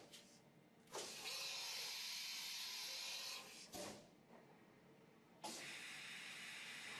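Faint hissing noise of a Swiss-type CNC lathe machining a bar. The hiss begins about a second in and breaks off just before the middle. It returns, quieter, about two-thirds of the way through.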